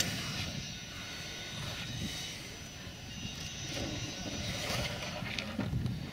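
Steady drone of an aircraft engine running at a distance, over a low rumble of wind.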